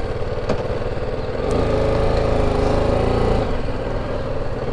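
BMW G310 GS motorcycle's single-cylinder engine running as the bike rides off at low speed, pulling a little harder for a couple of seconds in the middle.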